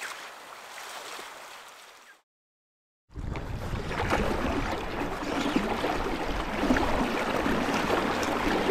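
Flowing river water with wind buffeting the microphone, rumbling low. About two seconds in, a second of dead silence, after which the water and wind are louder.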